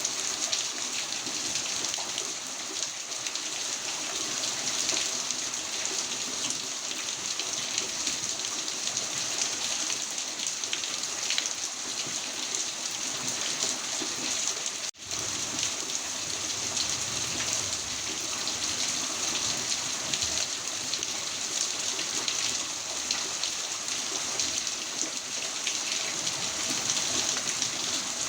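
Heavy rain falling in a steady, dense hiss, broken by a split-second gap about halfway through.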